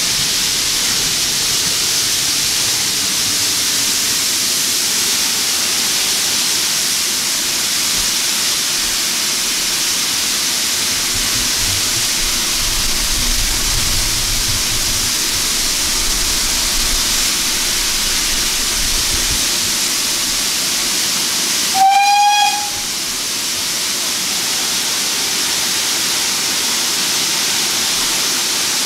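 Steam locomotive GWR 4555, a small prairie tank, gives one short whistle blast about two-thirds of the way through, over a steady hiss.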